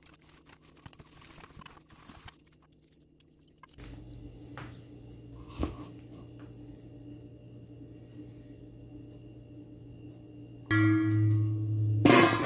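Metal tongs lightly clicking and scraping against a stainless steel mixing bowl, then a stainless steel dome lid set onto the bowl, giving a loud metallic ringing tone of about a second that ends in a clank.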